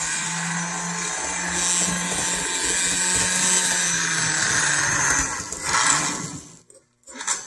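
HO-scale Walthers Mainline Conrail Dash 8 model locomotive running on DC power: its small electric motor and gearing whine steadily with a low hum as the wheels roll along the rails. It cuts off suddenly near the end, followed by a couple of light clicks.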